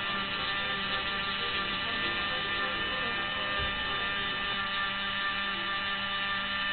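Small handheld electric rotary engraving tool running at a steady speed, giving a constant whine while its bit carves a rubber eraser stamp.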